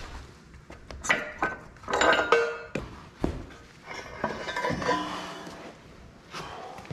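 Steel clanking and clinking as a diamond-plate steel sheet with weld-on quick-coupler ears is worked off an excavator's quick coupler: a run of sharp metal knocks with short ringing, busiest in the first half and softer about four to five seconds in.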